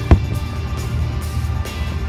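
Music with a heavy, steady bass plays throughout, and a single sharp, loud bang cuts through it just after the start: a firework exploding.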